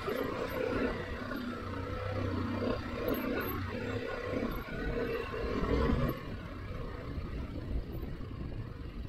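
BMW G 310 GS's single-cylinder engine running under way, its pitch wavering with the throttle, mixed with wind and road noise.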